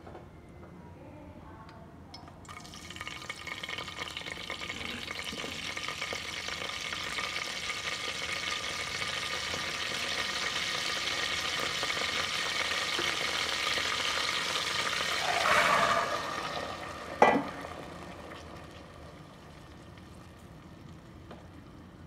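Curry leaves and whole spices frying in hot oil in a pressure cooker, sizzling and spluttering from about two seconds in and building steadily. A sharp knock on the pan comes near the end, after which the sizzling dies down.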